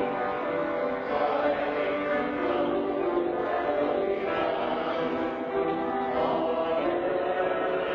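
A small group of singers sing slowly with instrumental accompaniment, in long held notes without a break.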